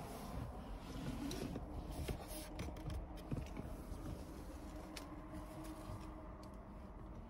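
Quiet car-cabin room tone: a faint low rumble and hum with light rustles and a few small clicks from a hand-held phone being moved about.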